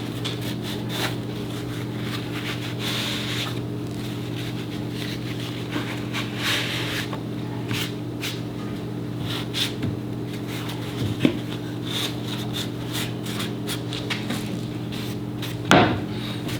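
Wood being handled, with scattered light knocks and rubbing and two louder knocks, one about two-thirds through and one near the end, over a steady low hum.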